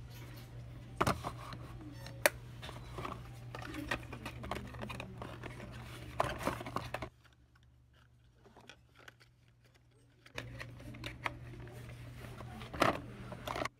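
Handling noise from a small cardboard product box being turned over in the hands: scattered taps, clicks and rustles. Beneath it runs a steady low hum that cuts out for about three seconds past the middle.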